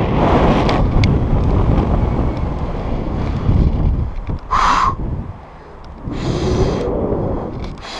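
Rushing wind buffeting a helmet-mounted GoPro microphone as a rope jumper falls and swings under a bridge. It is loud and low and comes in surges, with a brief high-pitched cry near the middle.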